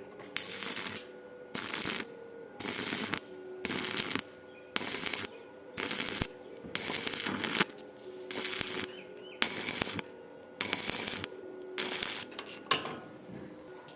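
Welding arc crackling on square steel tubing in short bursts, about eleven in a row with brief pauses between: stitch welding, laying short beads one after another.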